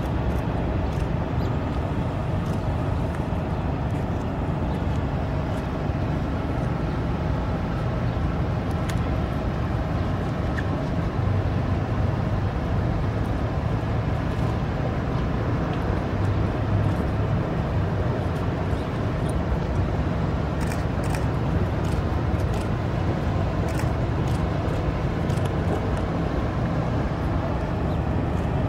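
Steady low outdoor rumble from a large gathering in the open air, with a few faint sharp clicks in the second half.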